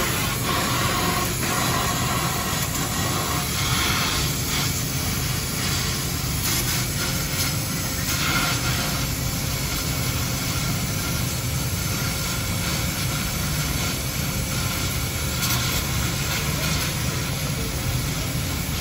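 Welding on a car's exhaust pipe: a steady crackling hiss over a low hum.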